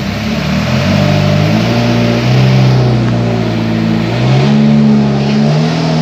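Small motorboat's engine running loudly, its pitch shifting up and down several times as the revs change.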